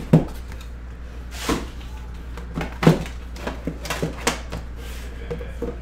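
Metal tin of an Upper Deck The Cup hockey box being handled and opened: several sharp knocks and clicks as the lid comes off and the tin is moved about.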